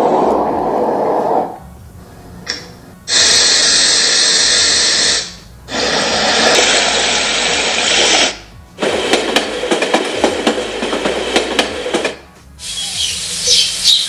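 The Fansbe alarm clock's built-in white noise machine playing through its small speaker, stepping to a new sound every two to three seconds with a brief gap between each. It goes from a low hiss to two brighter, fuller hisses, then a hiss full of crackles, and near the end high chirping.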